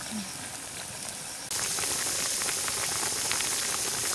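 A steel wok of fish and vegetable soup simmering over a wood fire: a steady hiss of bubbling and sizzling with many fine crackles. The hiss grows louder about one and a half seconds in.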